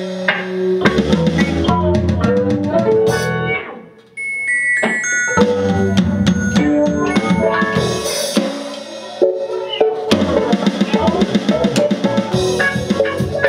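A live band jamming: drum kit, electric guitars and keyboard playing together. About four seconds in the band drops out for a moment, then comes back in.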